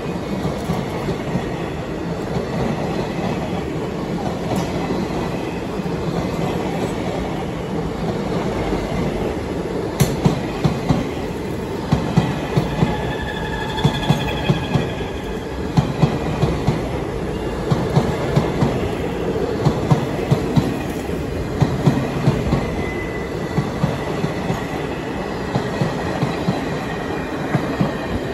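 Indian Railways passenger coaches rolling past close by, their wheels clacking in a steady rhythm over the rail joints from about a third of the way in. Around the middle there is a faint, thin wheel squeal.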